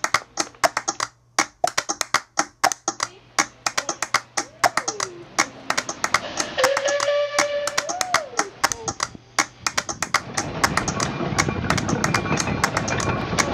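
Rapid, irregular run of sharp clicks and taps, several a second. A sliding, voice-like tone comes in briefly in the middle. From about two-thirds of the way in, a steady rushing noise builds up underneath.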